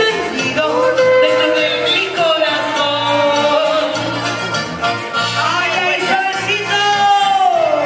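A song: a singing voice holding long notes that bend and slide, over a steady repeating bass beat.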